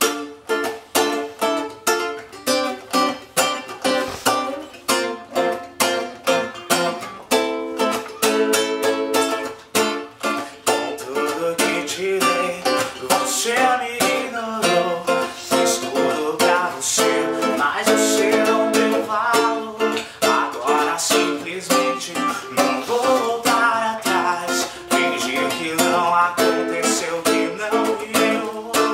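Instrumental intro of a song on small plucked string instruments: chords strummed in a steady rhythm of about two strokes a second, with a melody line joining over them about twelve seconds in.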